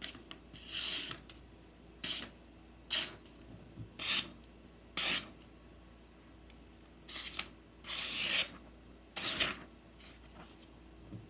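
A fresh, factory-sharp folding-knife blade slicing through paper in about eight quick, hissing cuts, each well under a second, spaced out with short pauses; an edge test of the out-of-the-box sharpness.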